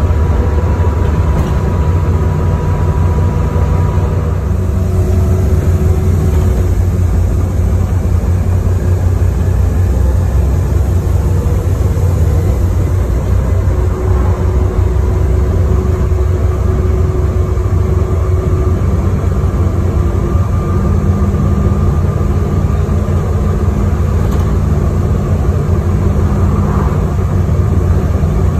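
First Wessex bus 32329 on the move, heard from inside the passenger saloon: a steady low engine drone with road noise, and engine tones that shift in pitch a few times as the bus changes speed.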